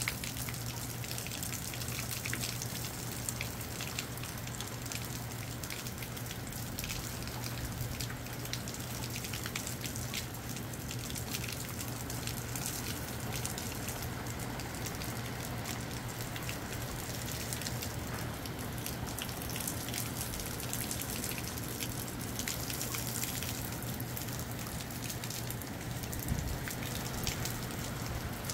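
Moderate rain falling steadily, with many close drops striking separately, over a constant low hum.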